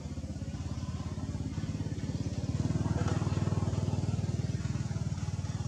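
A small engine running steadily with an even, rapid low pulse, growing louder about halfway through.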